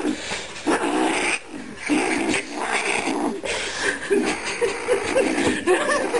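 Kitten yowling and growling in protest, one drawn-out cry after another with short breaks, while it bites down on a cigarette that a hand is trying to pull from its mouth. This is the possessive guarding sound a kitten makes over a prize it won't give up.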